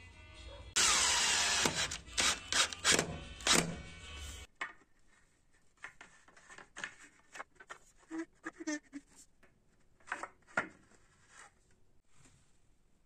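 A cordless drill runs in a short burst about a second in, driving a screw through a wooden curtain-rod bracket into the wall, followed by several sharp knocks and clicks. After that come only faint scattered taps and wood rubbing.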